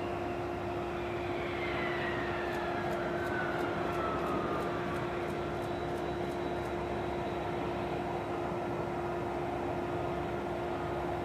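Jet aircraft engine noise: a steady rushing sound with a whine that falls in pitch over the first few seconds, over a steady low hum.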